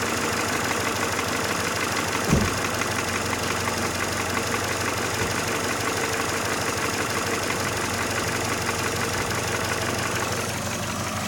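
Mercedes Vaneo 1.6 petrol engine idling with a fast, even ticking from the valvetrain: knocking hydraulic valve lifters, which the owner sets out to cure by flushing them. A single low thump comes about two seconds in.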